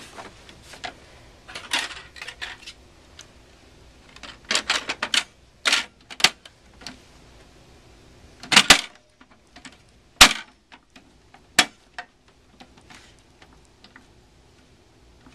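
Plastic front panel of an HP Pavilion 750 desktop tower being pressed onto the case: a run of irregular clicks and snaps as its clips catch, with three sharp snaps in the second half.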